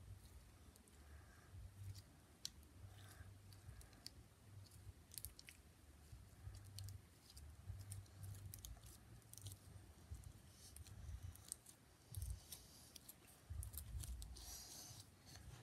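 Sticky pink slime stretched and squeezed by hand, giving faint scattered clicks and squishes, with a slightly louder squelchy rustle near the end.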